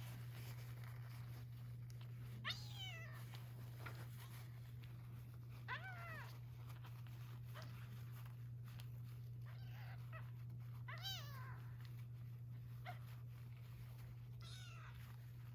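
A young kitten meowing: four high calls that fall in pitch, spread a few seconds apart, with a few fainter cries between them. A steady low hum runs underneath.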